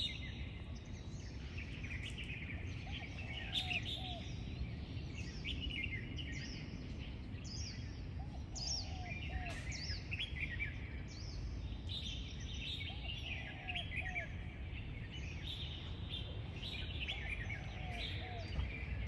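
Several birds chirping and singing, with a short low three-note call repeating every four to five seconds, over a steady low background rumble.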